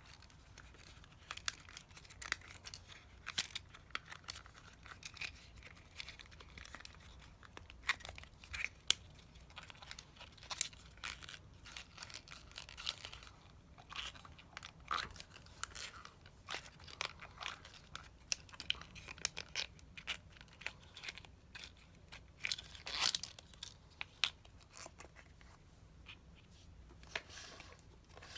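Irregular small clicks, taps and short scrapes of hand work on small parts and tools, with some crinkling, as during disassembly of a Shimano Di2 STI lever.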